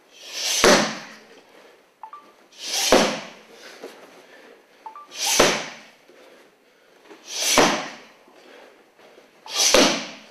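Karate strikes landing on a handheld kick pad, five times about every two seconds, each a short rising hiss that ends in a sharp smack.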